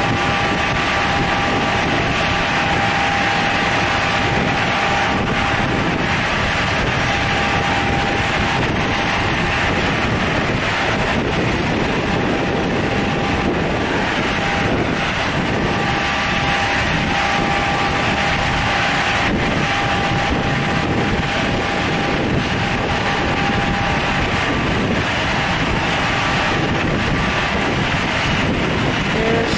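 Steady drone of a light propeller aircraft's engine, with wind noise on the microphone.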